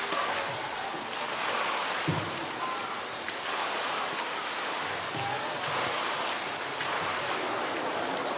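Polar bear swimming and surfacing in a zoo pool: steady churning and splashing of the pool water, with a couple of low thumps about two and five seconds in.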